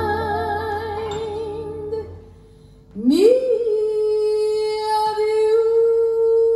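Vinyl record of a female singer playing through a stereo system with Divini Audio Reference 8 bookshelf speakers. A long held note with vibrato fades out about two seconds in. After a short pause the voice slides up into another long, steady held note.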